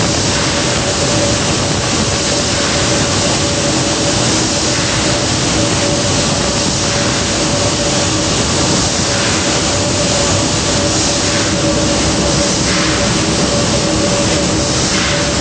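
Giant stationary gas engines running in an engine house: a loud, steady mechanical din with a constant hum through it.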